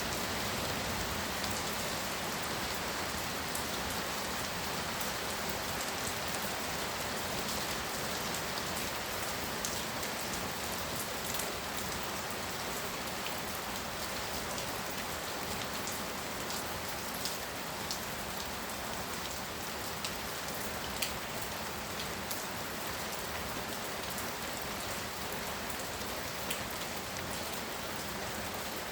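Heavy rain falling steadily, a dense even hiss with the sharp ticks of separate drops hitting a surface.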